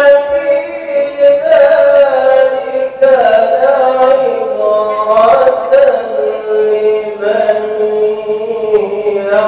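Man reciting the Quran in the melodic tilawah style into a microphone: one long unbroken phrase of held, ornamented notes that settles onto a lower held note in the second half.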